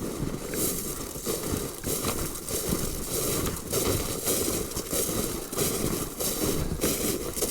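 Footsteps crunching through dry leaf litter at a steady walking pace, a little under two steps a second.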